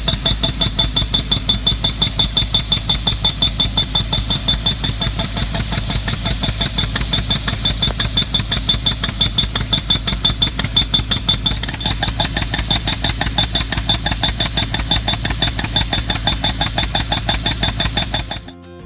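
Pneumatic soil mole (impact moling tool) hammering in a fast, even rhythm of about four to five blows a second, with engine noise underneath. It is boring a channel underground for a water pipe. The hammering cuts off suddenly near the end.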